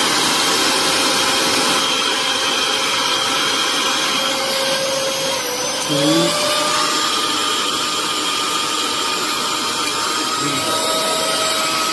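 Usha Spin Pro 500 W mixer grinder's motor running with no jar fitted, a steady high-speed whine over a rushing noise. About six seconds in the whine shifts upward in pitch as the speed knob is turned.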